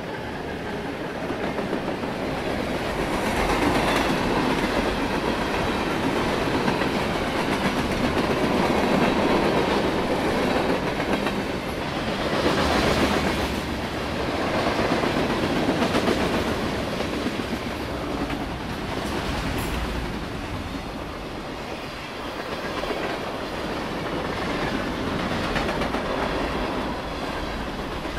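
Freight train passing close by: the trailing locomotives and then covered hoppers and boxcars rolling past, steel wheels clacking over the rail joints over a steady rumble.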